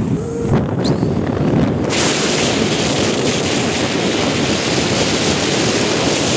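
Road and engine noise inside a moving Hyundai i10 on a highway. About two seconds in, it switches suddenly to a loud, even rush of wind and tyre noise that carries on steadily.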